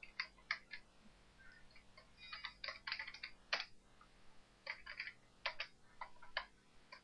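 Computer keyboard typing: three quick runs of key clicks with short pauses between, as a command line is keyed in.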